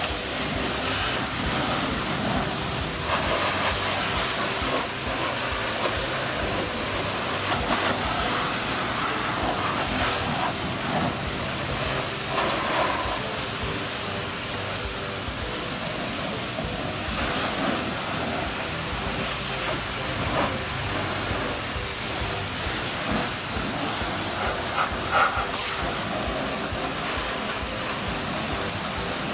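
High-pressure water jet from a Kokoro T2200MG pressure washer's spray wand hissing steadily as it rinses snow foam off motor scooters. The spray spatters against the bodywork and paving over a faint steady hum.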